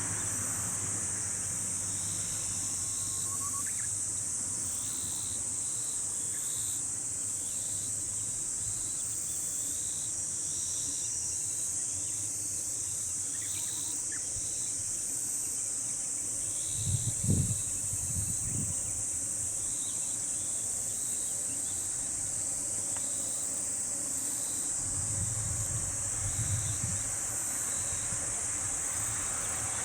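Chorus of insects: a steady high-pitched drone, with another insect pulsing about once a second. A brief low thump comes a little past halfway, and a low rumble comes near the end.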